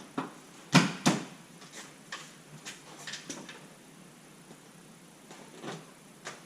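Sharp plastic clicks and knocks as a plastic trim cover is pressed into place and its push-in clips snapped home, the two loudest close together about a second in, then a scatter of lighter clicks.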